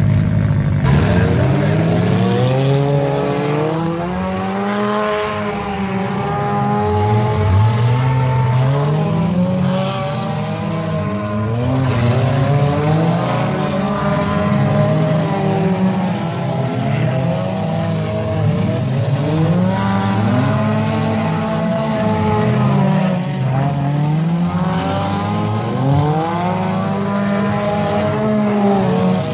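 Several figure-8 race cars' engines revving hard, their overlapping notes repeatedly climbing and dropping in pitch as the cars accelerate and back off around the track.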